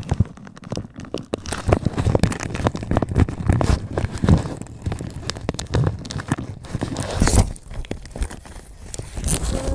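Rustling and crackling handling noise from a handheld phone rubbed against hair and clothing, with many irregular clicks and knocks.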